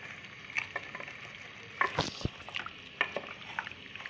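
Mutton pieces being stirred with yogurt in a hot metal pot: a spoon scraping and knocking against the pot over a low sizzle, with a few sharper knocks about halfway through.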